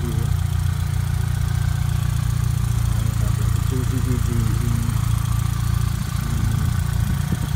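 Toyota Celica GT-S's 1.8-litre 2ZZ-GE VVTL-i four-cylinder engine idling steadily, heard from the open engine bay.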